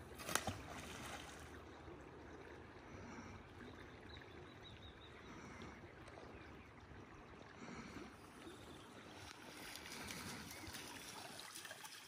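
Faint flowing river water, with one short sharp sound about half a second in.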